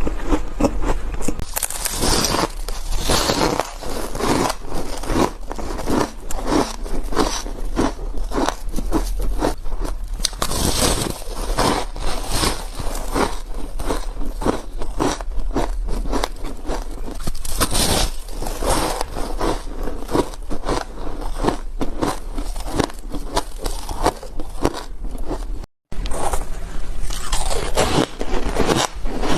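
Ice being bitten and chewed close to the microphone: a dense, continuous run of loud crunches, broken once by a brief silent gap near the end.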